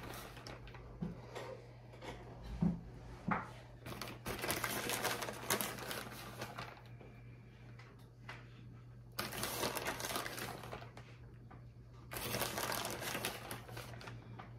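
Plastic bag of shredded cheddar cheese crinkling as the cheese is pinched out and sprinkled onto a baking sheet, in several bursts of rustling with small clicks between. A steady low hum runs underneath.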